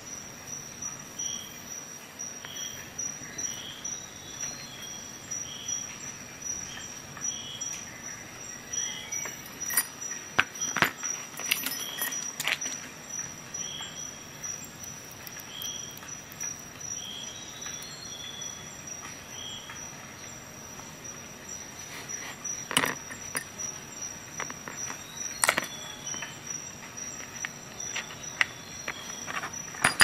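Small steel screwdriver bits and tool pieces clicking and tapping as they are handled and set down, with a few sharper clicks in the middle and again near the end.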